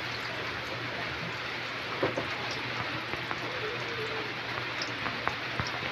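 Egg-dipped eggplant (tortang talong) frying in hot oil in a wok: a steady sizzling hiss with a few scattered pops and crackles.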